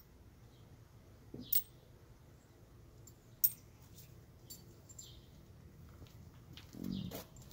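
A few sharp small clicks and ticks from small round pieces being handled and set down on a sheet-metal panel. The two loudest come about a second and a half in and about three and a half seconds in, with a duller knock near the end.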